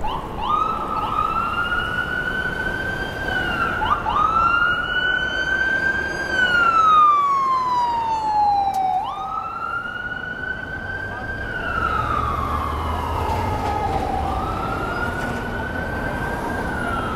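Emergency vehicle siren in a slow wail, climbing quickly, holding, then gliding down, repeating about every five seconds, over street traffic noise.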